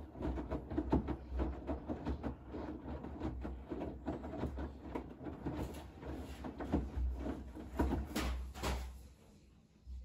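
Bosch front-loading washing machine tumbling a wet load of fluffy blankets in a 70 °C cotton wash: water sloshing and laundry thudding in the drum over a low steady hum. It goes much quieter about nine seconds in as the drum pauses.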